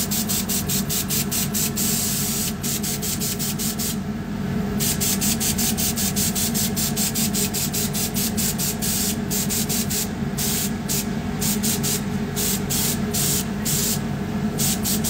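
Airbrush spraying cocoa butter onto a frozen chocolate tablet in quick short hisses, about six a second, with a pause of about a second some four seconds in and a few shorter gaps later. This pulsed spraying builds a velvet finish on the chocolate. A steady low machine hum runs underneath.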